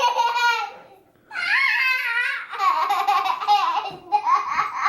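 A young child laughing and babbling in a high voice, in about four bursts of a second or so each.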